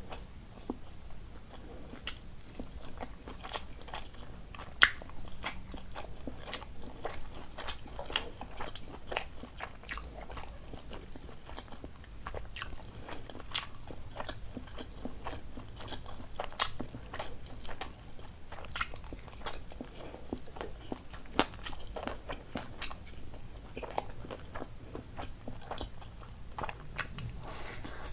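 A person eating, close-miked: irregular biting, chewing and crunching of food, with many small wet mouth clicks and one sharper, louder crunch about five seconds in.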